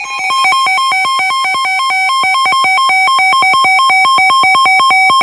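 Loud electronic alert tone warbling rapidly back and forth between two pitches, a weather alarm signalling an incoming warning.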